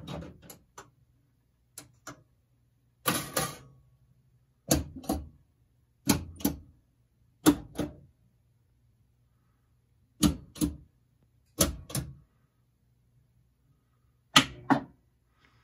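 Gottlieb System 80B pinball machine in its relay and solenoid test, its relays and solenoids firing one after another. Each firing is a sharp clack, mostly in pairs, about every second and a half, with one longer pause partway through, over a faint low hum.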